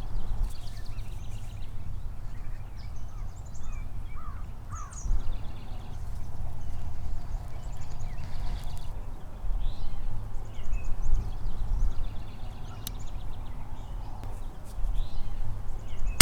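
Wild birds chirping and trilling, with a few short gliding calls, over a steady low rumble.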